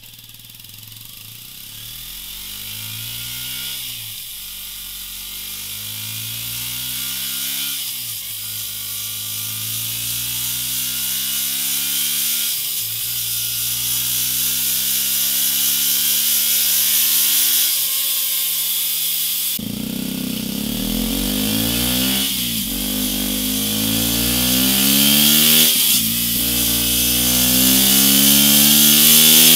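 KTM 125 Duke's single-cylinder four-stroke engine running hard through its exhaust, its pitch climbing and dipping every three to four seconds and growing louder. It is heard first through the stock silencer, then, about twenty seconds in, through a MIVV M2 aftermarket silencer, which is louder with a stronger low note.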